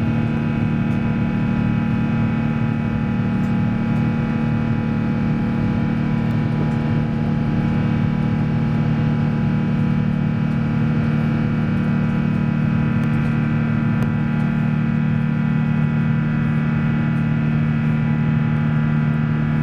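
Rolls-Royce Trent XWB jet engines of an Airbus A350 heard from inside the cabin beside the wing: a steady, loud drone with several held tones layered over rushing noise, unchanging in level.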